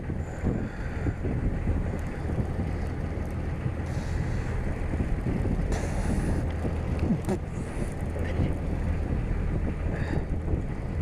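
Steady low rumble of a fishing boat under way, with wind buffeting the microphone and a few brief hissing sounds about four, six and seven seconds in.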